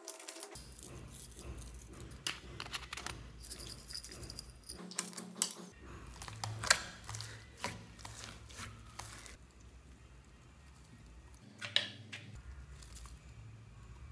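Hands pressing and squishing slime loaded with foam beads, glitter and sequins, giving irregular crackles and clicks, with a few louder pops.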